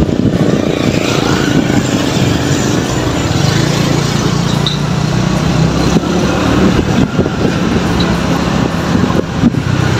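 Motorbike engine running while riding along a road, with wind rumbling on the microphone; a steady engine hum settles in about three and a half seconds in.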